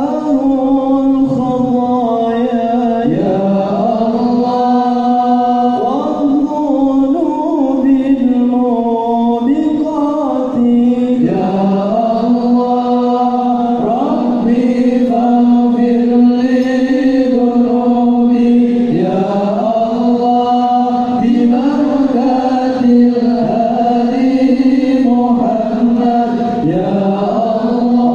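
A group of male voices chanting an Arabic devotional song (sholawat) in unison, with long held notes sliding from one pitch to the next.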